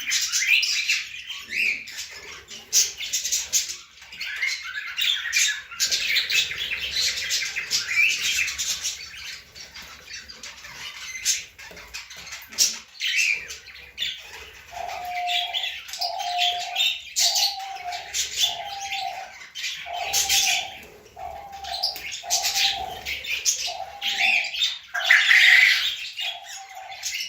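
A dense spring chorus of many birds chirping and calling over one another. In the second half a lower note repeats about once a second, roughly a dozen times.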